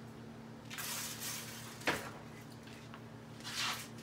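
Two short hissing bursts, the first about a second in and a shorter one near the end, with a single sharp click between them, over a faint steady hum.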